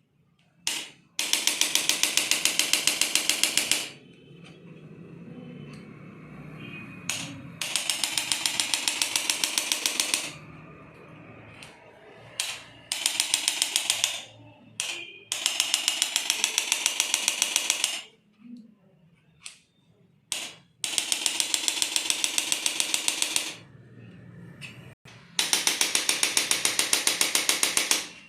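Handheld chiropractic percussion instrument firing rapid, evenly spaced clicking thrusts in six bursts of two to three seconds each, with short pauses between them.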